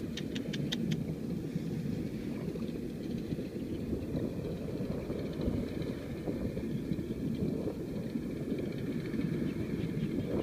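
Steady low wind rumble buffeting the microphone. A quick run of about six sharp clicks comes in the first second.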